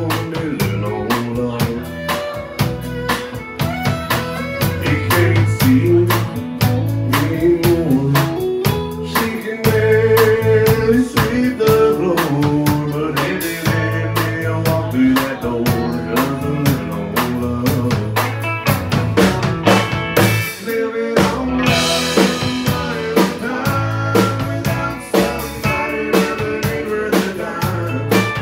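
Live country band playing with a steady beat: fiddle, acoustic guitar, electric bass and drum kit, with a cymbal crash about two thirds of the way through.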